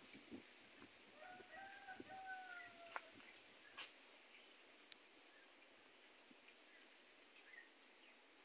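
A rooster crowing once, faint, starting about a second in and held for nearly two seconds before it drops away; a few sharp clicks follow.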